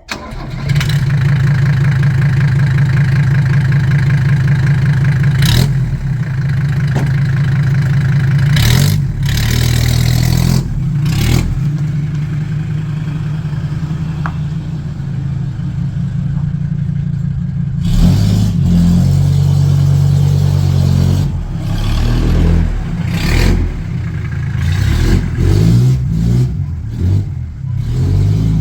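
Mercedes-Benz W123 300D's naturally aspirated five-cylinder diesel running loud through an open exhaust, only the first section of pipe left on, with a harsh tractor-like diesel note. It starts about half a second in, runs steadily, and in the last third the pitch rises and falls as the engine is revved.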